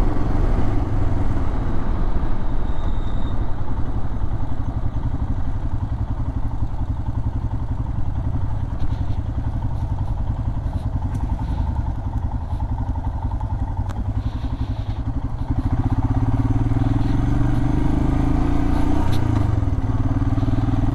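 Royal Enfield Himalayan's single-cylinder engine running steadily while under way, growing louder about three-quarters of the way through.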